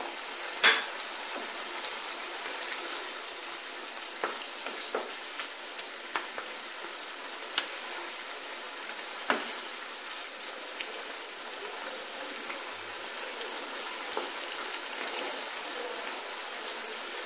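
Potato and poppy-seed paste curry sizzling steadily in a non-stick pan over a turned-up gas flame, while a wooden spatula stirs it and knocks against the pan a few times.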